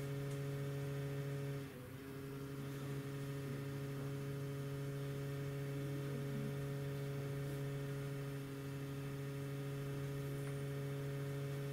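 Steady electrical hum, a low tone with a few overtones above it, dipping briefly about two seconds in.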